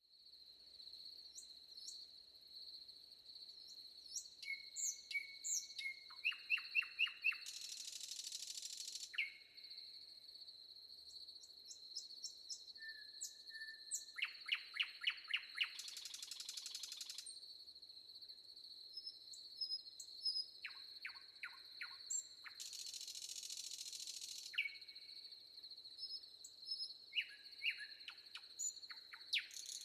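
Forest birds singing, several phrases made of quick, downward-sweeping notes in rapid runs, over a steady high insect drone. Short bursts of high hiss come back about every seven seconds.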